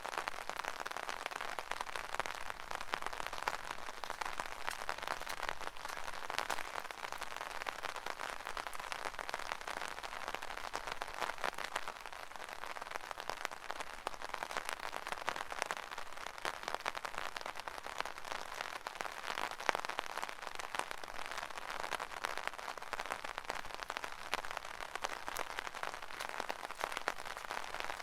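Rain falling on an umbrella canopy: a dense, steady spray of many small drop impacts, evenly sustained.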